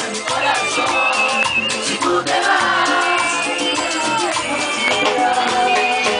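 Live band music with a singer singing into a microphone over drums and rattling, shaker-like percussion, in a Latin dance style.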